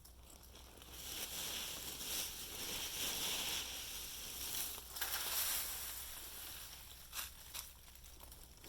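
Dry fallen leaves crackling and rustling, with a few sharp snaps near the end.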